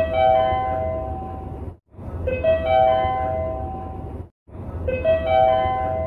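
Train operation-information update chime looping: a short run of bell-like tones stepping upward, cut off abruptly and restarting about every two and a half seconds, over a low rumble.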